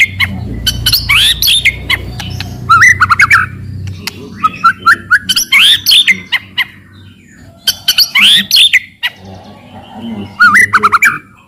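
White-rumped shama (murai batu) singing loudly: short phrases of rising and falling whistled notes, laced with sharp clicking and rattling notes (cetrekan), repeated every two seconds or so.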